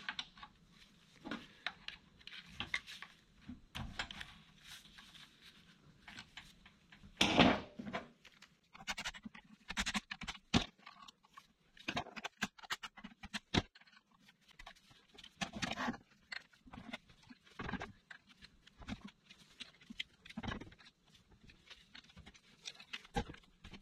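Irregular metal clicks, scrapes and knocks of a hand tool turning the bearing adjusters on a differential carrier, as they are run in to set zero side play. There is one louder, longer burst of noise about seven seconds in.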